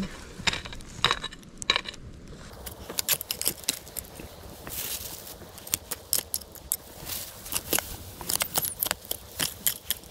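Digging in stony soil for earthworms: irregular scrapes, crunches and small clicks of earth and stones being broken up and turned over.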